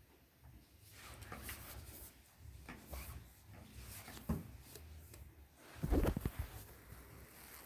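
Hands handling plastic vacuum cleaner parts: rustling with scattered clicks and knocks, and a louder cluster of knocks about six seconds in.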